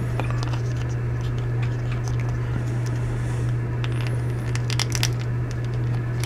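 Small plastic clicks and taps of action-figure parts being handled as a shield is worked into a figure's hand, over a steady low hum.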